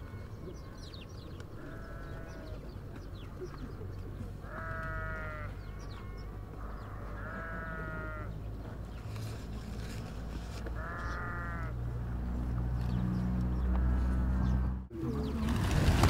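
An animal calling about five times, short pitched cries a few seconds apart, with faint high bird chirps and a low rumble that slowly grows louder. Near the end the sound cuts out and a loud rushing noise begins.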